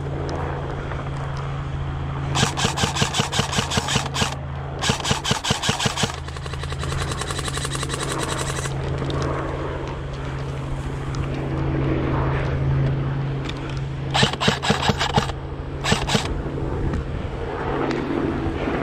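Airsoft guns firing on full auto in rapid bursts: two longer bursts a few seconds in and two shorter ones past the middle. A steady low engine drone runs underneath.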